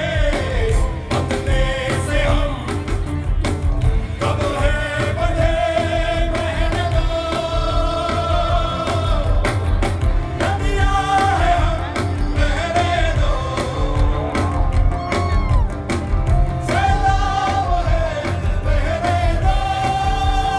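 Live rock band music: a male voice sings long held, wavering notes over a full band with heavy bass and drums.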